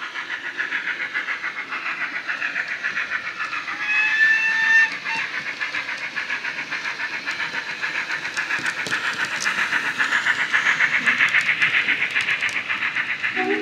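DCC sound decoder in a Dapol 61XX Large Prairie model steam tank engine, playing the recorded exhaust of a GWR Large Prairie through the model's small speaker: rapid, even chuffs. A steam whistle sounds about four seconds in for about a second, and a few sharp clicks come later on.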